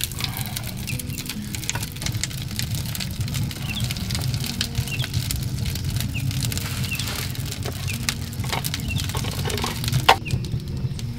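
Wood fire crackling in a clay fireplace: a steady low rumble of burning with many small pops and crackles, and one sharper, louder snap near the end.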